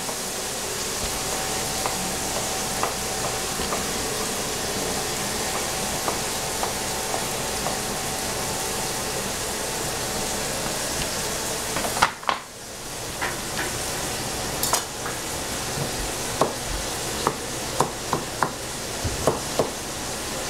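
Food frying in oil in a pan, sizzling steadily, with a utensil stirring and clicking against the pan. About twelve seconds in there is a knock and the sizzle dies down briefly before coming back, and several sharper clicks of the utensil on the pan follow near the end.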